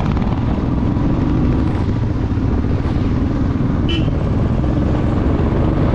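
Royal Enfield motorcycle under way, its engine and the rush of riding blending into a steady low rumble.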